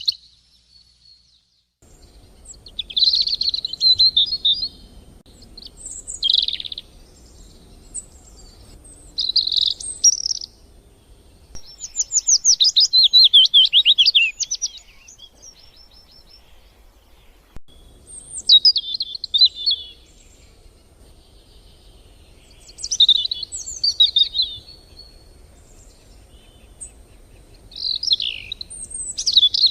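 Birds singing: short, varied chirping phrases every few seconds, starting about two seconds in, over a faint low rumble.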